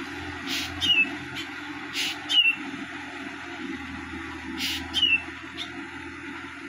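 Diesel engine of a Sonalika DI-50 tractor running steadily under load at a distance, driving a rotary tiller through field stubble. Over it a bird calls three times, each a harsh note followed by a quick falling whistle, about every two seconds.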